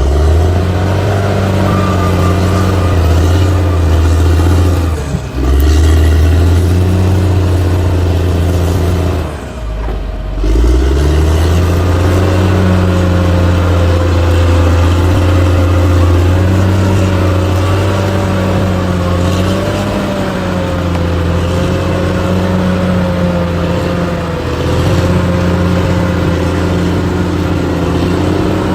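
Heavy diesel engine of an earthmoving machine running hard under load, with a deep steady drone that dips briefly twice. A higher, wavering whine rises above it from about the middle onward.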